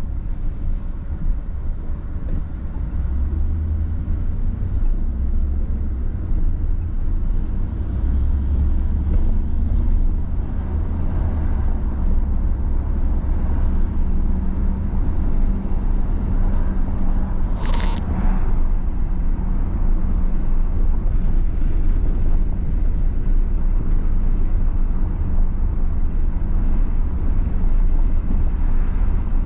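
Steady low rumble of a vehicle on the move, engine and road noise, with a brief higher-pitched sound about eighteen seconds in.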